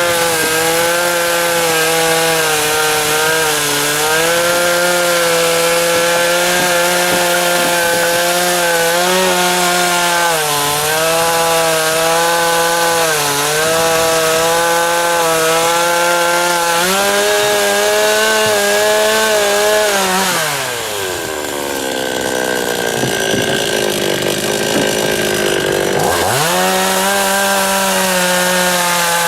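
52cc Chinese two-stroke chainsaw with a 20-inch bar running at full throttle through willow logs, its pitch dipping briefly under load several times. About two-thirds of the way in it drops to idle for about five seconds, then revs back up to cutting speed.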